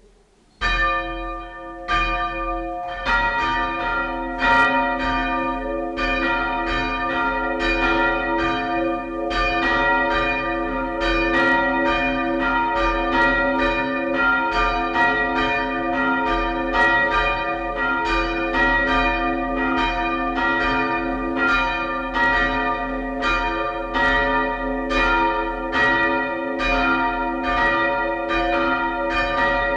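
Two church bells swung and rung by hand with ropes: one bell starts striking about half a second in, the second joins about three seconds in, and both then keep striking steadily in an overlapping peal.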